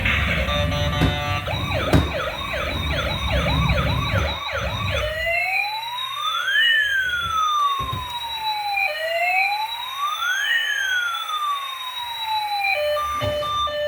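Electronic police-style siren. It starts with a fast yelp of quick rising-and-falling sweeps over a low rumble, and about five seconds in switches to a slow wail that rises and falls twice, about four seconds per cycle. Near the end it gives way to a string of steady electronic tones.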